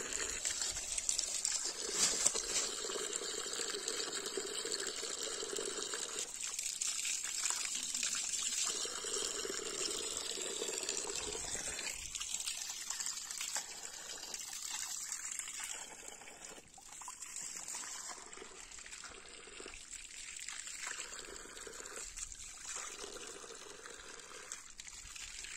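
Mountain spring water trickling and splashing steadily, growing fainter in the second half.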